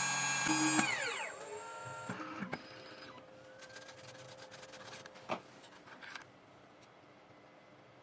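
CNC key cutting machine's cutter spindle running with a steady whine, then winding down about a second in as the cut finishes. A few light clicks and one sharper knock follow.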